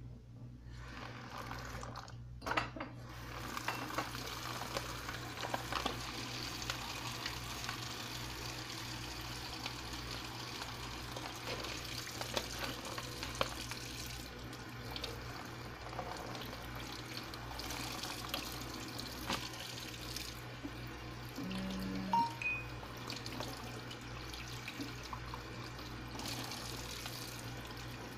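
Kitchen tap running into a stainless-steel sink while a beef brisket is rinsed under the stream, with a few small knocks and clicks.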